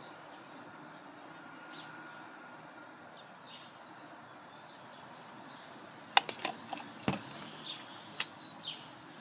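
Faint birds chirping in the background. About six seconds in comes a cluster of sharp clicks, ending in a dull thump.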